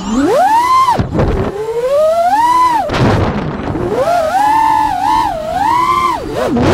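A Diatone Roma F5 5-inch FPV quadcopter's motors and propellers whine, heard from the camera on board. The pitch swoops up and down sharply with throttle, and there are rushes of wind noise where the throttle drops, about one and three seconds in.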